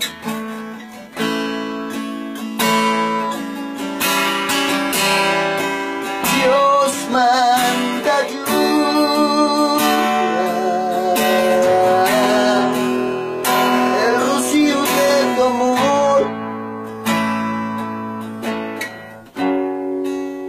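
Instrumental break in a Spanish-language worship song: acoustic guitar strumming chords, with a melody line wavering in pitch over it through the middle.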